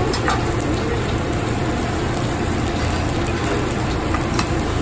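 Food sizzling on a hot hibachi teppanyaki griddle as oil is squeezed onto it, a steady hiss over a low background rumble, with a couple of faint clicks.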